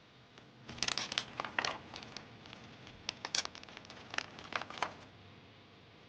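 Doll packaging being handled and unwrapped: clusters of sharp crinkles and crackles lasting about four seconds.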